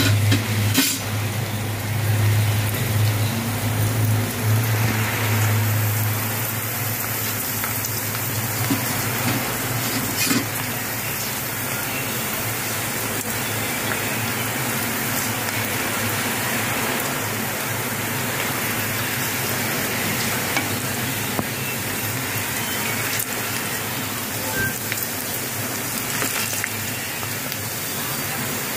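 Dried snack-chip pellets deep-frying in hot oil, a steady sizzle and bubbling as they puff up into wavy chips. A low hum fades after about five seconds, and there are a couple of sharp knocks, about a second in and about ten seconds in.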